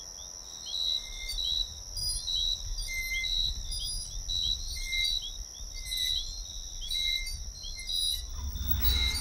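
Night insect ambience: a steady high cricket trill with short chirps repeating about once or twice a second, over a low rumble. A louder low swell comes in near the end.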